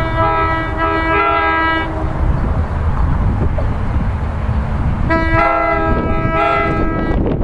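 Multi-tone chord horn of an approaching NJ Transit commuter train, sounded for a grade crossing: long blasts in the first two seconds, then another long stretch of horn from about five seconds in. A steady low rumble runs underneath.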